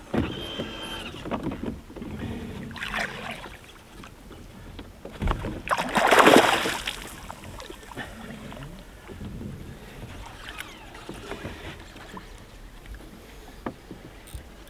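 Sounds aboard a small fishing boat on the water: scattered knocks and water noise, with one loud rushing burst about six seconds in.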